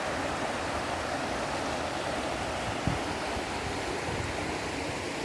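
Mountain river rushing steadily, an even hiss of flowing water.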